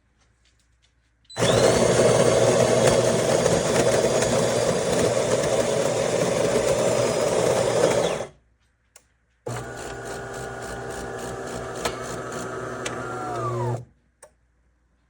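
De'Longhi Magnifica Start espresso machine running through a cycle. A loud, dense grinding-like run lasts about seven seconds, then stops. After a short pause a quieter motor run of about four seconds follows and winds down in pitch as it stops.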